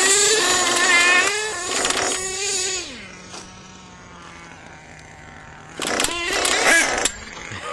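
Nitro RC monster truck's small glow-fuel engine revving hard with a high, wavering whine. About three seconds in it drops to a quieter steady drone, then revs up loudly again near the end.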